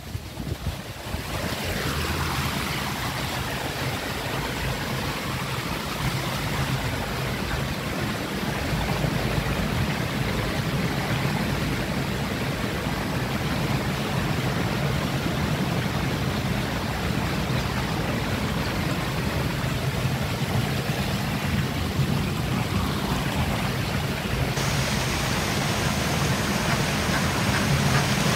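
Steady rushing of running water, swelling over the first couple of seconds and turning brighter and more hissy near the end.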